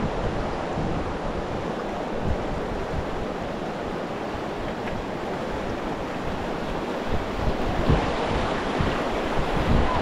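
Rushing river water around a raft, with wind buffeting the microphone; it gets a little louder about seven seconds in.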